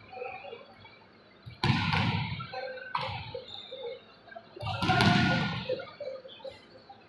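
Volleyballs being hit and slamming onto the court in an echoing sports hall during warm-up: a sharp smack about a second and a half in, a lighter one near three seconds, and a louder, longer burst of noise around five seconds.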